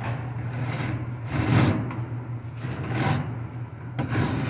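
Metal ceiling return-air grille panel being pushed and pressed up into its frame, giving several scraping, rubbing strokes about a second apart, the loudest about a second and a half in, as its stubborn clips refuse to catch. A steady low hum sits underneath.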